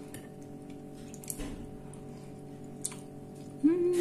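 Mouth noises of someone eating, with a few faint clicks like a fork on a plate, then near the end a short hummed 'mmm' that rises and falls.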